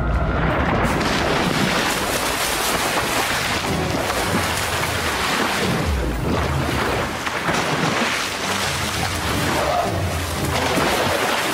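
Swimming-pool water splashing and churning hard and without a break as people thrash in it, a dense rush of spray and slaps. It starts suddenly as the sound comes up from a muffled underwater sound.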